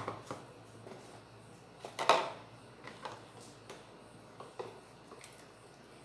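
Hard plastic blender jar and plastic tubs being handled on a counter: one sharp knock about two seconds in and a few light taps after it, with no blender motor running.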